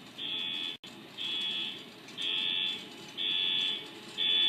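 Electronic warning beeps from the onboard sound system of an MTH HO-scale SD70ACE model diesel locomotive at the start of its startup sequence: five even beeps, about one a second.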